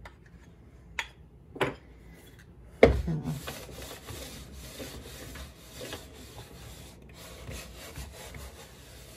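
Two light clicks and a sharp knock about three seconds in, then a metal hand plane's sole, blade retracted, rubbing along a wooden board in repeated strokes.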